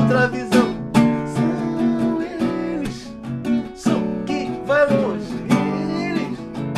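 Acoustic guitar playing and strumming a tune, with a man's voice singing short wordless phrases over it.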